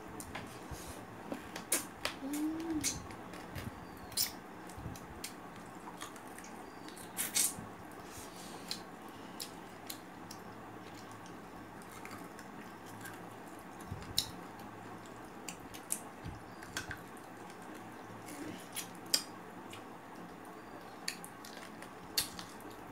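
People eating rice, lentil dal and goat meat without talking: scattered sharp clicks and soft squishy chewing and mouth sounds at irregular intervals.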